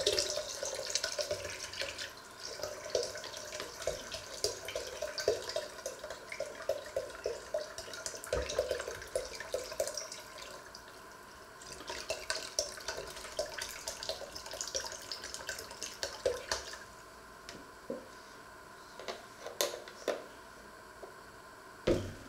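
Liquid poured from a carton into a plastic measuring jug of water, splashing and glugging unevenly in two long pours with a brief pause about eleven seconds in. A few separate knocks follow near the end.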